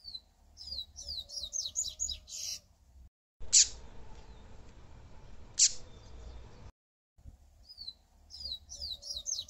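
Yellow-bellied seedeater (papa-capim) singing: a fast phrase of high, quickly repeated down-slurred notes, then two loud, sharp notes sweeping steeply down about two seconds apart, then the fast phrase again. The sections are joined by abrupt cuts.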